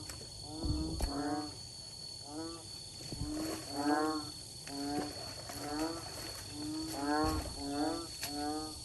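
Chorus of frogs calling, many short repeated calls overlapping, each a low note that bends upward, over a steady high tone.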